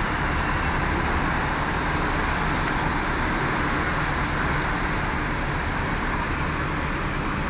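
Diesel bus engine idling steadily, with street traffic noise.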